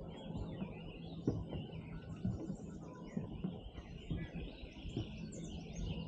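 Many songbirds chirping and singing over one another, busiest near the end, with soft, irregular thuds of footsteps on a wooden boardwalk.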